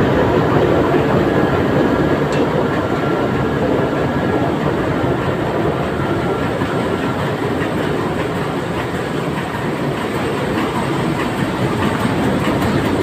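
Engine-room machinery running: a loud, steady din of a large engine and electric-motor-driven auxiliaries, with no letup.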